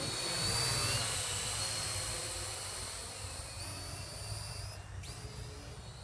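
Parrot AR.Drone 2.0 quadcopter in flight: the high whine of its four brushless motors and propellers, wavering in pitch as it manoeuvres, with a sharp dip and glide back up about five seconds in. It fades over the second half as the drone flies away.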